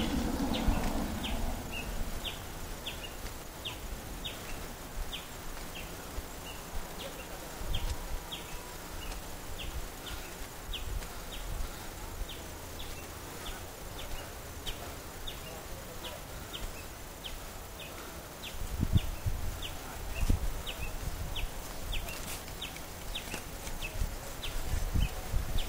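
An insect chirping steadily in the surrounding vegetation: short, high chirps repeated evenly about two a second. Low rumbling thumps on the microphone come through a few times in the last third.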